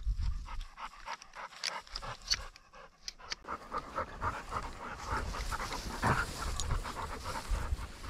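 A dog panting hard and fast close by, starting about three seconds in, after a few seconds of footsteps and rustling through bog grass and brush.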